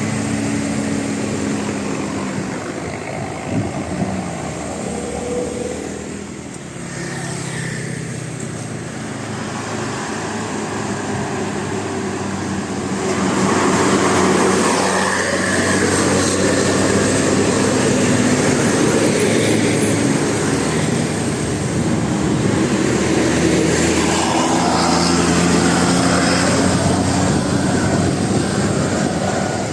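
Road traffic: heavy vehicle engines running steadily, getting louder about 13 seconds in as one passes close.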